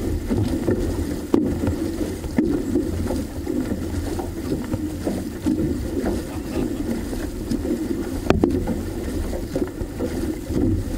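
Water sloshing and rushing along the hull of a six-person outrigger canoe under paddle, with wind on the microphone. A few sharp knocks cut through, the loudest about eight seconds in.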